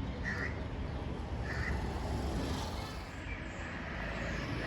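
Outdoor ambience: a bird calls a few times in short, separate calls over a steady low background rumble.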